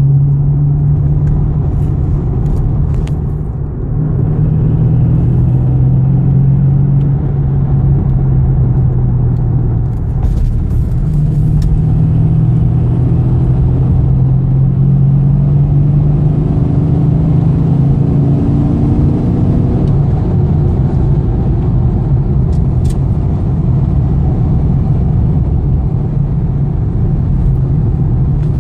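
Holden VE Commodore SS V8 running through a full Xforce aftermarket exhaust while driving, a steady low drone. The note dips briefly twice, about four and ten seconds in.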